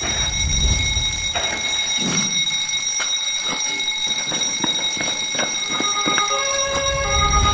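Smoke alarm sounding a continuous high-pitched tone, with scattered irregular crackles from the fire. Lower tones join about six seconds in.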